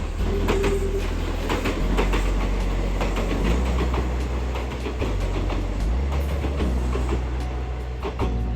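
Kintetsu Minami-Osaka Line electric train passing, its wheels clacking over the rail joints, with background music running underneath.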